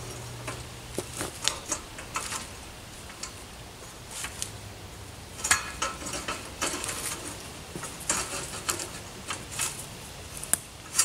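Metal treestand ladder sections clinking and clanking against each other as they are shifted by hand into alignment: irregular light metal knocks, with a louder clank near the end.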